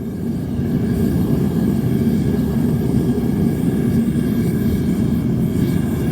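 Metal-melting furnace burner running with a steady low rumble, which rises to full level within the first second.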